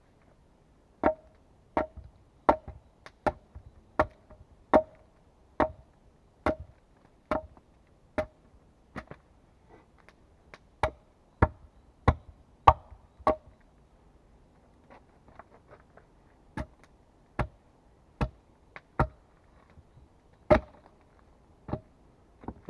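An axe chopping wood: a steady run of sharp blows, about one every three-quarters of a second, many with a short ring, broken by a couple of brief pauses and lighter strokes.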